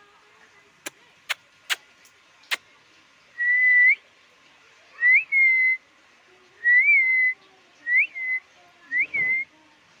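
Four sharp clicks, then five short whistled notes, each with a quick upward flick before settling on a steady pitch.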